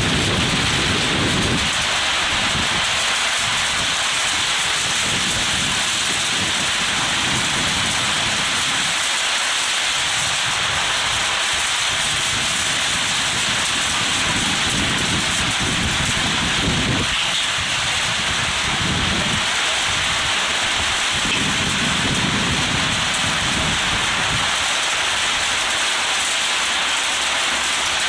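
Heavy monsoon rain falling steadily: a dense, even hiss, with a low rumble that comes and goes underneath.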